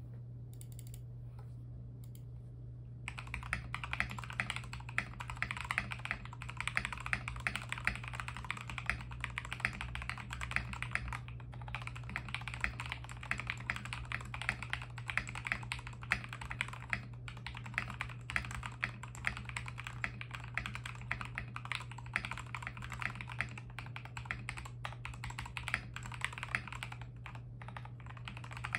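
Continuous typing on a 65% CIY68 mechanical keyboard fitted with Gateron Milky Red Pro linear switches lubed with Krytox 205g0, Iceberg XDA PBT keycaps, and a tape mod. The typing starts about three seconds in, over a steady low hum.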